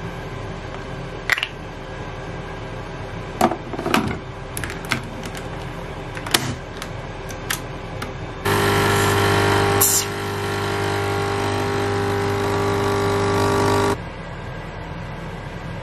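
Krups Dolce Gusto capsule coffee machine: a series of clicks and knocks as the plastic capsule holder is handled and swapped, then about 8.5 seconds in the pump starts and runs with a steady hum for about five seconds, brewing coffee into the glass of milk, before stopping abruptly.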